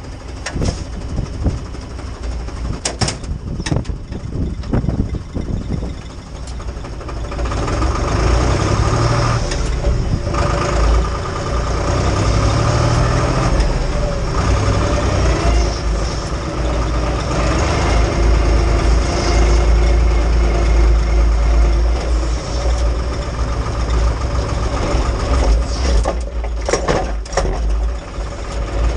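IHC 633 tractor's diesel engine running, heard from inside the cab; it gets louder about seven seconds in. A few sharp knocks and clatters come early on and again near the end.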